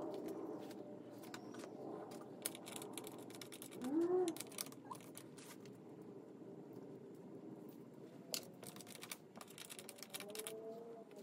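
Scattered light clicks and knocks of chair parts being handled over a low background hum, with a cat's short meow rising and falling about four seconds in and a fainter meow near the end.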